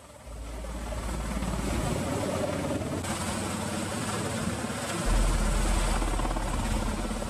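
Helicopter running, a dense rotor and turbine noise with a deep low drone; it gets louder about five seconds in.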